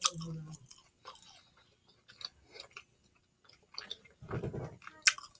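Close-miked chewing of a Philly cheesesteak sub, soft bread and filling worked in the mouth with wet mouth clicks. There is a sharp click right at the start and another near the end.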